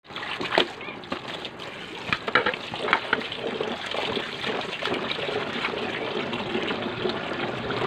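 Tap water running into a plastic basin while chunks of raw meat are rinsed and rubbed by hand in it, with a few sharp knocks and clicks in the first three seconds.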